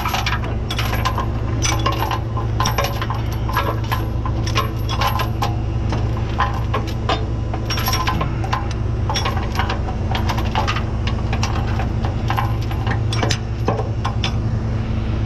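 Metal hardware clinking and rattling in many quick, irregular knocks as parts and tools are handled, over the steady low hum of an idling truck engine.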